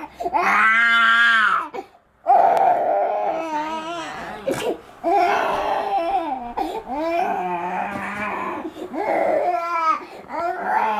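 A toddler crying in a string of wails with short breaks, the longest about two seconds in. The child has just woken from sleep in the night.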